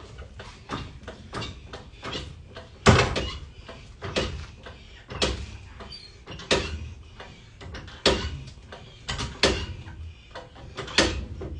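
Hydraulic floor jack being pumped by its long steel handle, a metallic clunk with each stroke about every second to second and a half, as it lifts a pickup truck.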